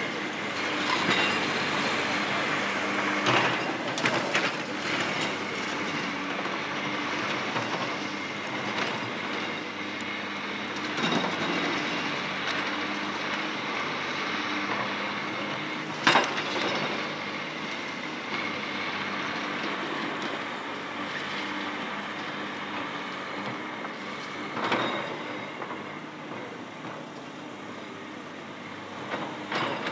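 Komatsu hydraulic excavator running steadily while its crusher jaws break up concrete stadium seating, with a scatter of sharp cracks and clanks of concrete and metal, the loudest about halfway through.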